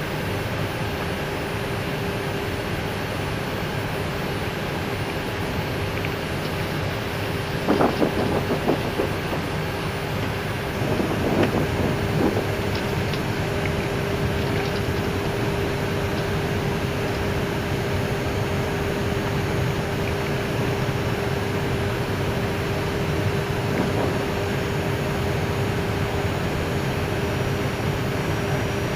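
Airbus A319 cockpit noise while taxiing on one engine: a steady rush with a continuous hum, and a few short knocks about eight seconds and again about eleven seconds in.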